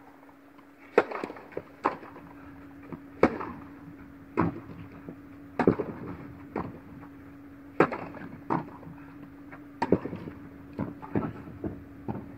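Tennis rally: racquets striking the ball and the ball bouncing on the court, a sharp crack about every second that echoes briefly in the hall. A steady low hum runs underneath.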